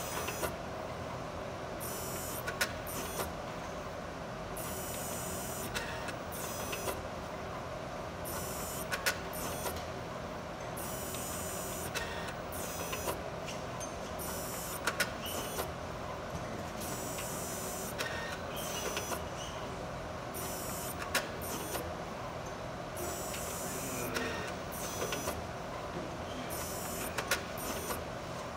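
Thermo Fisher TRACE 1300 gas chromatograph with its AI 1310 autosampler in operation: repeated short bursts of high-pitched motor noise and sharp clicks over a steady machine hum.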